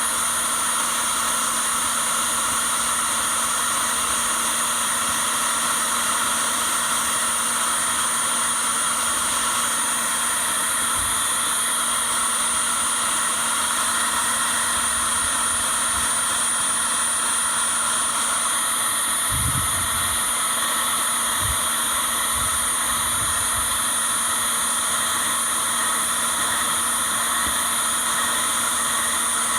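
Steady, unchanging machine noise: a hiss with several constant whining tones, as from a running motor or blower, with a few faint low thumps about two-thirds of the way through.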